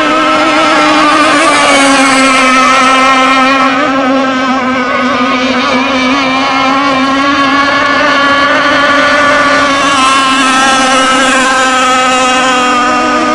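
Whiplash RC hydroplane's engine running flat out as the boat laps the course, a loud, steady high buzz whose pitch wavers only slightly.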